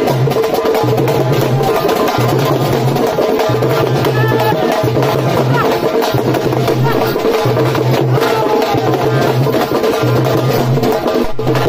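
Karakattam folk music played live: stick-beaten drums in a fast, busy rhythm over a steady held tone, with a low beat about once a second.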